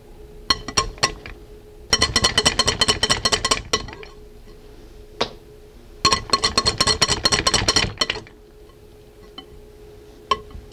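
Wire whisk beating whipped cream in a glass bowl by hand: two bursts of fast, ringing clinks of metal on glass, each lasting about two seconds, with a few single taps between them.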